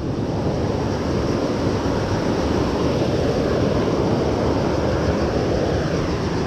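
Mountain river rushing over boulders in rapids, a steady, unbroken whitewater noise.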